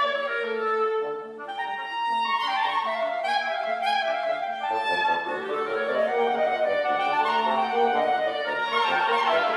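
Woodwind quintet (flute, clarinet and French horn among them) playing lively classical chamber music, several instruments sounding together in moving lines over held notes.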